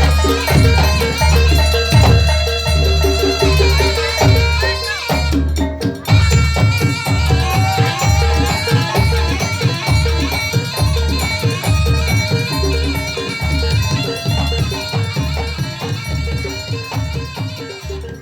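Traditional percussion ensemble music, with a steady deep drum beat about twice a second under a high melody that moves in steps. It gradually gets quieter toward the end.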